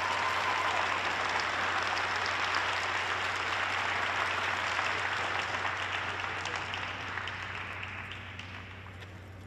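Audience applauding, the clapping thinning out and fading over the last couple of seconds, over a steady low hum.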